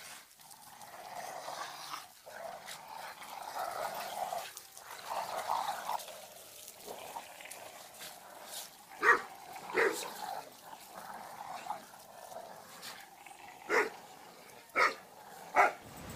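Several dogs growling as they tug together at a plastic tug ball, then five short, sharp barks in the second half.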